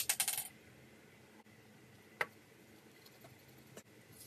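Quick run of light clicks and rattles from a small plastic bottle of glitter being handled and tipped over a bowl of slime, dying away within half a second; then quiet apart from one sharp click about two seconds in.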